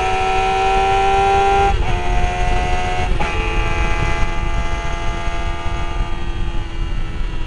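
Sport motorcycle engine at high revs, heard from onboard, its pitch climbing slowly, with two quick breaks for gear changes about two and three seconds in. Wind rumble on the microphone underneath.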